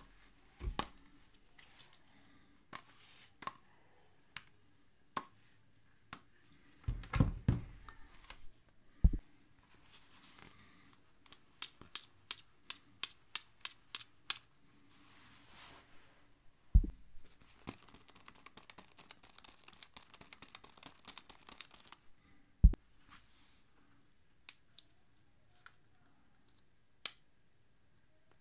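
Hunting gear being handled to show the noises it makes: hard knocks of binoculars against a rangefinder, then a run of sharp clicks from press-stud snaps on camo clothing, a rapid rattle for a few seconds, and single clicks from a bow release aid near the end.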